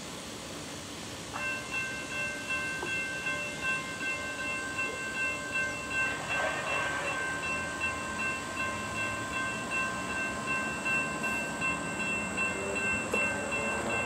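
Railroad grade-crossing warning bell starting up about a second in and ringing on in quick, evenly repeated dings: the crossing signals have activated for an approaching train.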